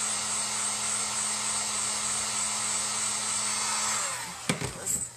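Handheld craft heat gun blowing steadily with a low hum, switched off about four seconds in and winding down, followed by two short knocks.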